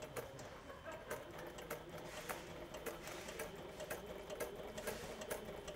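Sailrite sewing machine stitching slowly through a coil zipper: an even run of needle ticks over a faint motor hum.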